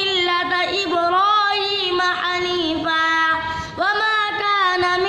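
A boy chanting Quran recitation in the melodic tajweed style, drawing out long held notes with slow turns in pitch.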